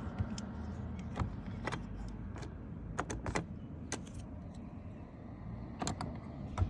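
Irregular small clicks and taps of metal parts and a screwdriver handled while taking apart a Yale digital door lock, some coming in quick pairs, over a low steady hum.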